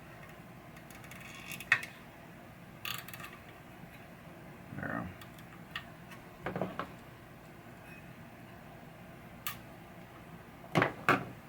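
Scattered light clicks and taps from a plastic zip tie being turned and adjusted on a wire, with a quick pair of sharper clicks near the end.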